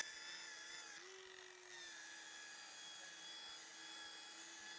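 Electric rotary car polisher running with a faint, steady whine as its foam pad works polishing paste over the paint. The pitch rises slightly about a second in, then settles back.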